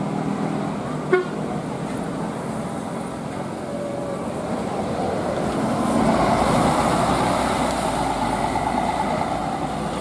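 Tour coach passing close on a hill road, its engine and tyre noise swelling as it goes by about six seconds in, with its telolet horn sounding. A single sharp knock about a second in.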